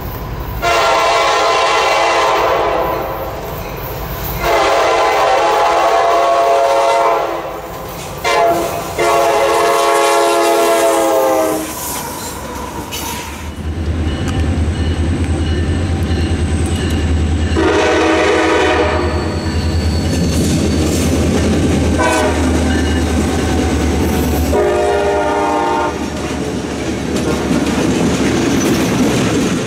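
A CSX diesel freight locomotive's multi-chime air horn blows the grade-crossing signal: two long blasts, a short one and a long one. Later the locomotives' diesel engines drone as a train approaches, with three more horn blasts, and then the rail cars loaded with welded rail roll past.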